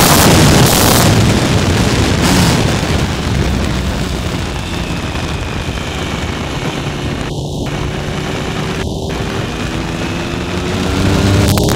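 Wind rushing over the microphone of a Triumph Tiger 1050 motorcycle at road speed, over its inline three-cylinder engine. The wind eases through a bend, then the engine note rises and the wind builds again near the end as the bike accelerates out.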